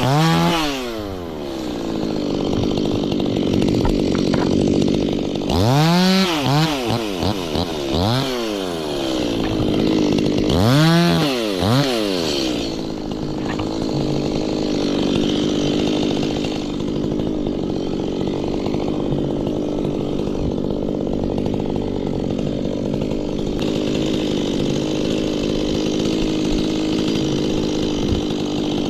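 Stihl two-stroke chainsaw revving up and down in several bursts, then running steadily at an even speed for the second half.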